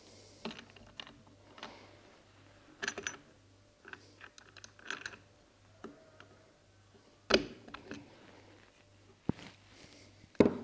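Irregular clicks, taps and knocks of hand tools and small parts being worked against a plastic rifle stock, the sharpest knock about seven seconds in and two more near the end.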